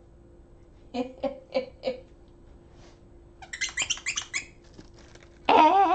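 Plush dog's squeaky toy squeezed over and over: four short squeaks, then a quick flurry of squeaks, then one longer, louder squeak with a wavering pitch near the end.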